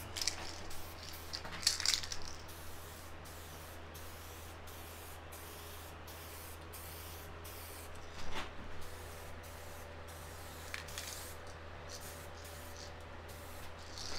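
Aerosol spray can of SprayMax 2K paint hissing in steady passes with brief breaks, louder near the start and again about 8 and 11 seconds in.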